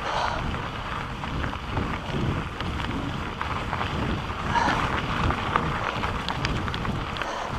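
Wind buffeting the microphone of a handlebar camera on a fast mountain-bike descent. Under it, the tyres roll over loose dirt and rock and the bike rattles with many small clicks.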